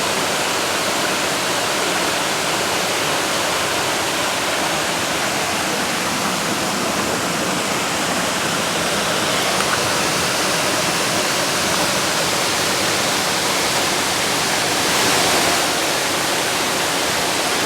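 Waterfall rushing steadily, an even noise of falling water that swells slightly about fifteen seconds in.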